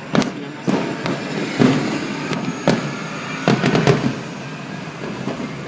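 Fireworks display going off: about six sharp bangs at irregular spacing over several seconds, with crackling and rumbling between them.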